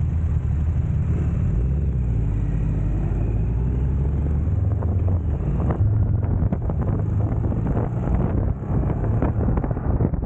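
Motorcycle engine running with a low steady rumble, then riding off, with wind buffeting the helmet-mounted microphone in gusty knocks from about halfway on.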